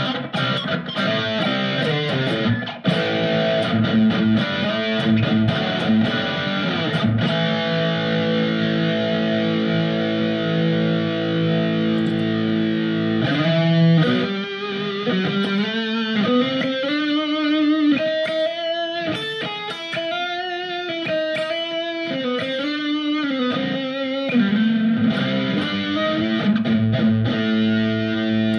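Electric guitar played through a distorted heavy metal preset on a Sonicake Matribox II Pro multi-effects processor. Held chords ring out, then from about halfway a lead line with string bends and vibrato takes over, returning to a held chord near the end.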